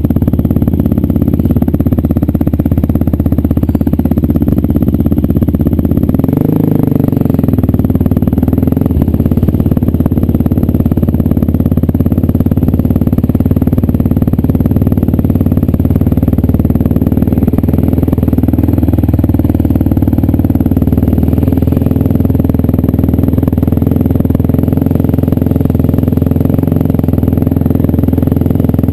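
A Yamaha Raptor quad's single-cylinder engine running steadily as it is ridden, loud and close to the microphone.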